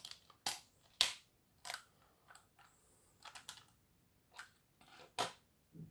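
Irregular sharp clicks and taps of small plastic and metal parts being handled: the opened plastic housing and metal fuse clips of a Noark fuse disconnector. There are about a dozen of them, loudest about a second in and near the end.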